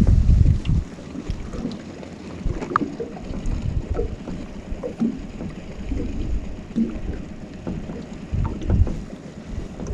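Gusts of wind rumbling on the microphone, strongest in the first second and again near the end, over water lapping against a small fishing boat, with scattered light knocks and clicks.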